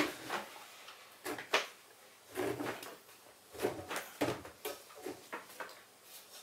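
Freshly washed damp cloths and wash mitts being pulled out of a front-loading washing machine drum by hand: irregular rustling and about half a dozen short knocks and clunks against the drum and door, with brief pauses between.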